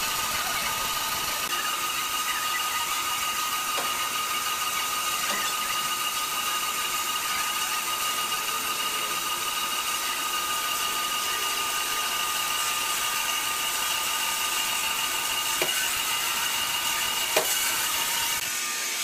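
Horizontal band sawmill cutting through a large wooden block: a steady high whine from the running band blade over the hiss of the cut. Two sharp clicks come near the end.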